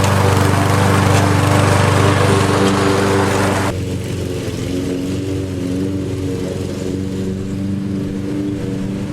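Lawn mower engine running at a steady speed with a loud rushing noise over it. A little over a third of the way in, the rushing cuts off suddenly and the engine runs on, somewhat quieter.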